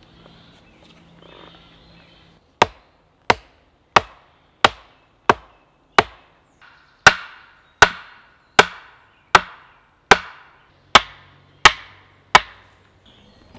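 An axe striking the top of an upright wooden stake over and over, driving it into the ground: about fourteen sharp, loud knocks, roughly one every 0.7 s with a brief pause near the middle, each ringing off quickly.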